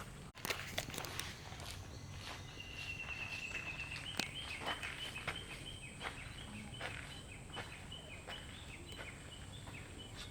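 Footsteps on a garden path, irregular crunching steps. A high, thin call begins about two and a half seconds in and goes on as a quick pulsing note.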